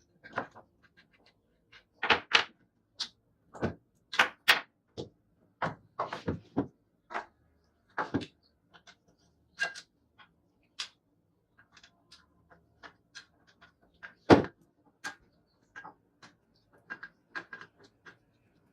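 Irregular knocks, taps and clanks of tools on metal parts of an old, rusty children's scooter being worked on, roughly one every half second to second, with one loud knock about fourteen seconds in.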